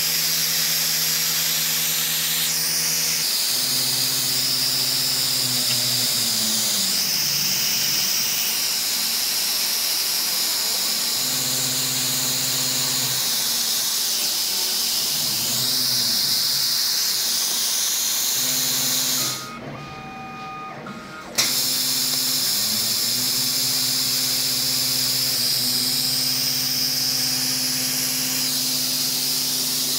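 Mixed laser cutting machine cutting thin steel sheet: a steady hiss of air blowing from the cutting head's nozzle, under low motor tones that shift and glide in pitch as the head moves. Near two-thirds through the hiss cuts off for about two seconds, then returns with a click.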